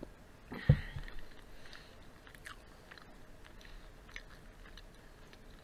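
Close-miked mouth sounds from drinking water: a swallow with a low thump about a second in, then scattered small lip and tongue clicks.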